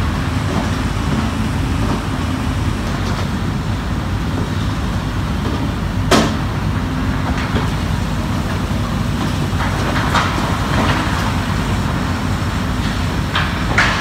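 Demolition site machinery running with a steady low rumble. A sharp knock comes about six seconds in, and lighter knocks follow near ten seconds and near the end.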